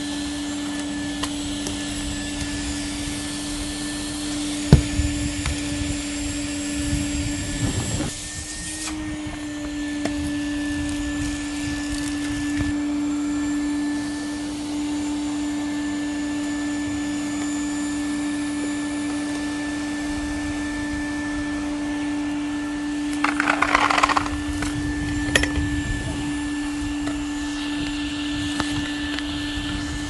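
Numatic tub vacuum cleaner running with a steady hum while its floor head is pushed over grass and dry ground. A sharp knock comes about five seconds in, and a short scraping clatter comes about three-quarters of the way through.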